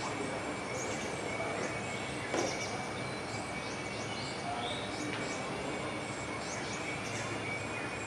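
Rainforest ambience: a steady insect drone with one constant high note, overlaid by many short, high, falling chirps from birds or insects.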